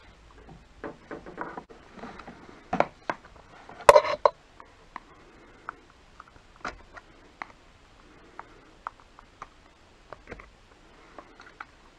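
Plastic clicks, taps and rustling as gloved hands handle a car side-mirror glass and its plastic backing plate against the mirror housing. There is a louder cluster of knocks about three to four seconds in, then scattered small clicks.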